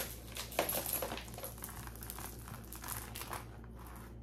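Packaging crinkling and rustling as it is handled: a run of crackly rustles that begins sharply, is loudest in the first second, and dies away about three and a half seconds in.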